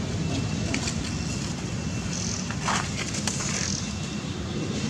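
Steady low outdoor background rumble, with a few faint clicks and a short rustle a little under three seconds in.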